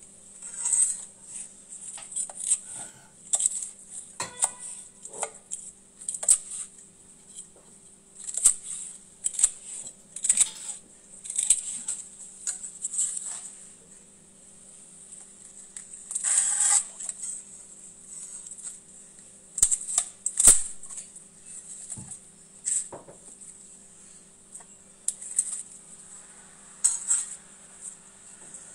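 Knife slicing through the crispy roasted skin of a Peking duck on a wooden cutting board: repeated short crackling crunches, with two sharp knocks about twenty seconds in. A faint steady hum lies underneath.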